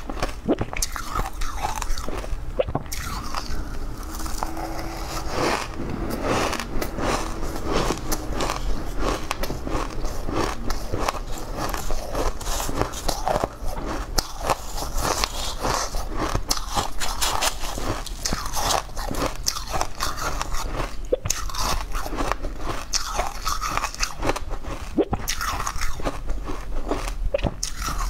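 Close-miked crunching and chewing of crushed ice by the spoonful, with dense rapid crunches throughout.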